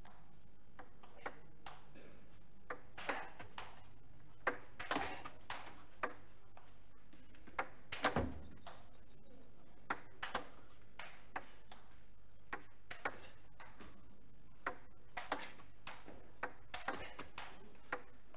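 Table tennis rally: the celluloid ball clicks off the table and the rubber bats at an uneven pace, about one to three knocks a second, with one heavier knock about eight seconds in. A faint steady low hum runs underneath.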